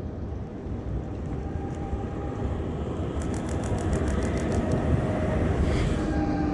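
A rail vehicle approaching, its low rumble growing steadily louder, with faint whining tones from its motors or wheels. A quick run of high ticks sounds for about a second and a half midway through.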